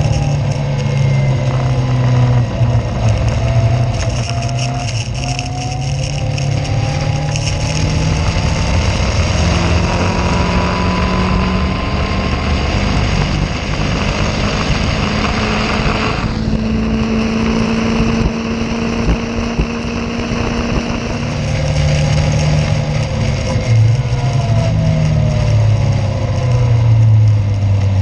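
Caterham race car engine heard onboard, rising in pitch several times as it accelerates. Around the middle it holds a steady note for several seconds, then revs up again, over a constant rushing noise.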